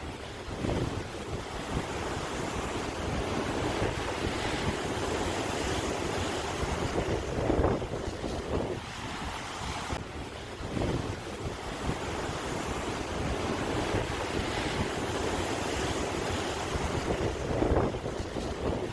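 Sea waves washing in, a continuous rush that swells louder about eight seconds in and again near the end, with wind buffeting the microphone.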